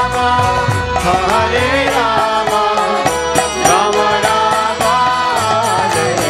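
Kirtan: voices chanting a devotional mantra to instrumental accompaniment over a steady percussion rhythm.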